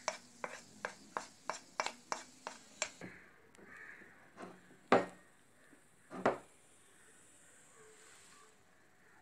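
A spoon scraping and knocking against a metal pan in quick, even strokes, about three a second, as hot caramel with nuts is scraped out onto foil. The strokes stop about three seconds in, and two louder single knocks follow just over a second apart.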